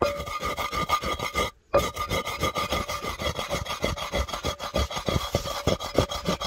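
Wooden pestle grinding dried whole red chillies and salt in a mortar: a fast run of crunching, scraping strokes, several a second, as the chillies are crushed to a coarse powder. There is a brief break about one and a half seconds in.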